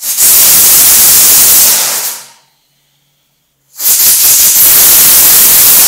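Pressure cooker whistling twice: loud bursts of steam hissing out past the weight valve, the first about two seconds long, the second starting about four seconds in. Each whistle is the cooker venting at full pressure, counted (4 to 6 whistles) to tell when the rice is cooked soft.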